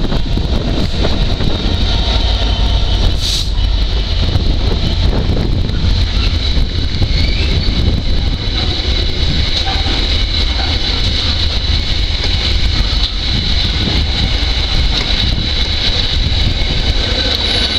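Class 66 diesel freight locomotive passing close by, followed by a long train of container flat wagons rolling past: a loud steady rumble of wheels on rail, with a steady high-pitched tone over it and one sharp click about three seconds in.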